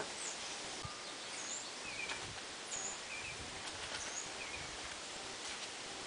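Faint, short, high bird chirps repeating every second or so over a steady outdoor hiss.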